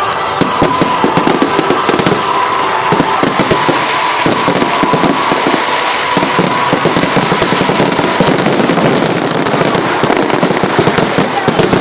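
Fireworks display: a dense, continuous barrage of rapid crackling pops and bangs, with music playing underneath.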